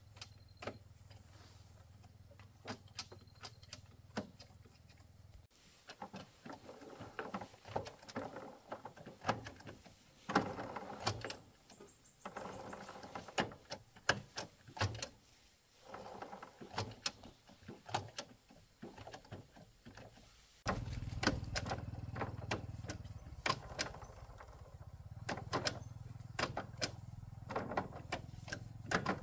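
Intermittent metal clicks, clinks and knocks of tools and parts being handled on a Honda underbone motorcycle's kick-start mechanism as it is taken apart. No engine is running.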